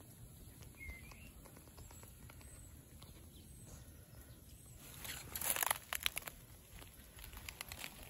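A crackling rustle of dry plant material, a close burst of crackles lasting about a second some five seconds in, over a faint outdoor background with one faint short chirp about a second in.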